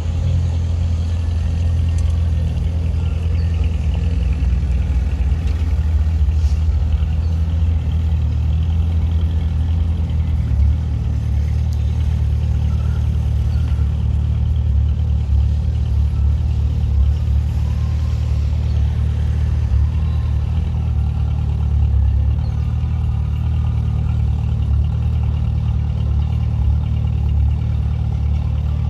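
Diesel-electric locomotive engines running at a steady low rumble.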